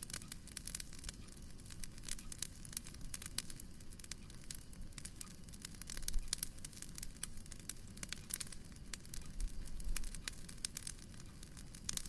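Wood fire crackling in a fireplace: many irregular sharp pops and snaps over a low steady rumble.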